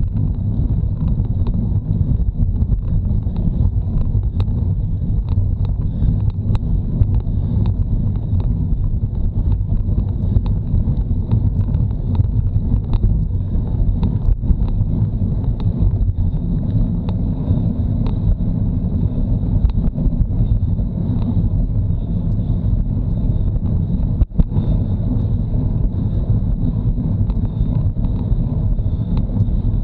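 Wind buffeting the microphone of a bike-mounted action camera during a road bike ride, a steady low rumble with small ticks and one short knock late on.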